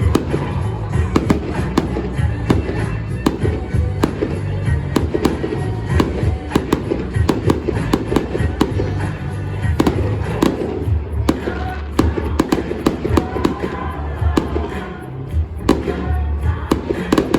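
Fireworks bursting in quick succession, many sharp bangs and crackles, with music playing loudly alongside.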